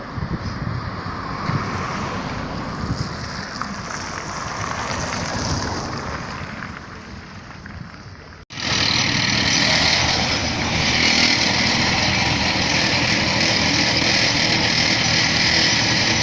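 Engines of asphalt-repair machinery running. About halfway through, a sudden cut switches to a louder, steady engine running close by.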